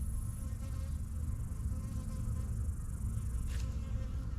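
Honeybees from an opened hive buzzing as a steady drone. A short click is heard near the end.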